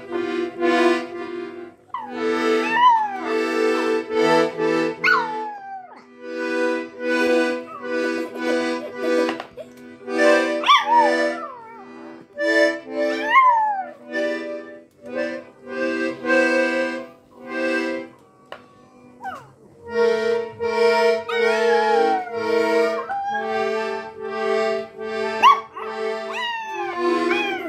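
A Prague Ratter howling along to cartoon music playing from a TV, about five drawn-out howls that slide up and then fall away over steady held chords of the music.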